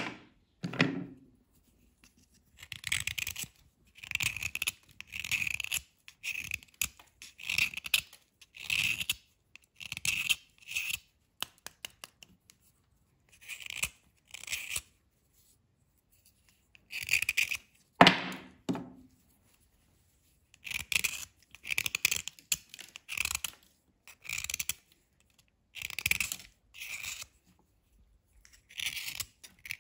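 Dry scraping strokes across a chalky white bar, shaving off powdery flakes: a run of short, gritty scrapes, about one a second, in groups with brief pauses. A louder, deeper scrape comes about 18 seconds in.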